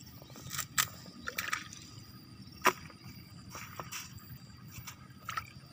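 Wet sloshing and squelching of shallow water and mud as hands work in a plastic bucket of water and a flooded rice paddy, with a few sharp clicks. The loudest click comes about two and a half seconds in.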